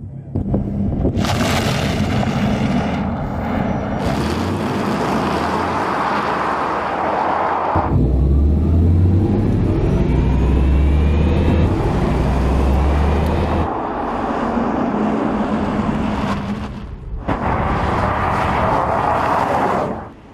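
Audi RS e-tron GT electric car driving fast: tyre and wind rush with a faint rising electric-motor whine and a low hum. The sound comes in several edited segments that start and cut off abruptly.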